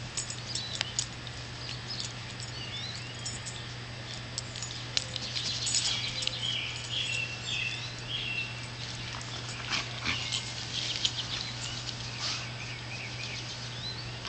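Tamaskan dog playing with a sweetgum seed ball on grass: many small crackles and clicks as it chews the ball and rolls about, and short high whines around the middle.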